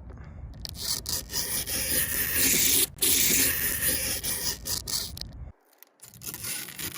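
Protective plastic film being peeled off a new car light, a crackling, rubbing rustle with a brief break about three seconds in and a short near-silent gap about five and a half seconds in.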